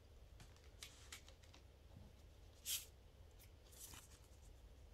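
Printed card inserts and lobby cards being handled and slid against each other: faint paper rustles and small taps, with one louder brief swish of card a little past halfway.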